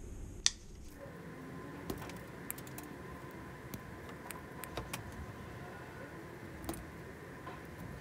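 Wire cutters snip through a wire with one sharp click about half a second in, followed by scattered light clicks and rattles of wires and tools being handled.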